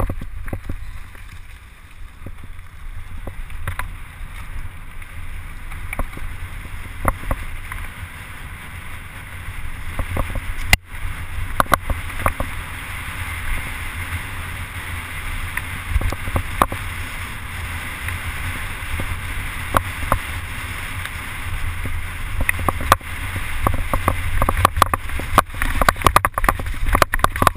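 Mountain bike descending a dirt forest trail at speed: wind buffeting the camera microphone, tyres rolling over the dirt, and the bike rattling and clicking over the bumps.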